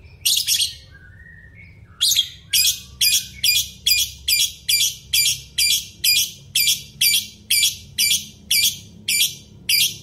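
Masked lovebird calling: a sharp double chirp, then from about two seconds in a rapid, steady series of loud, shrill chirps, about three a second.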